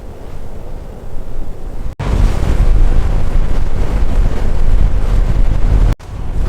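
Heavy wind buffeting the microphone: a loud, rumbling rush of noise. It drops out abruptly about two seconds in and comes back louder, then cuts out briefly again near the end.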